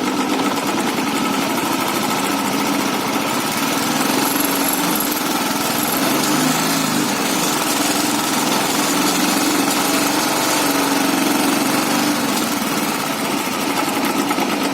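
Royal Enfield Bullet single-cylinder engine running steadily once hot, with the air-like noise that appears only when the engine is hot. Mechanics' views on its cause differ: the crank, something loose inside the engine, or the petrol tank's air vents.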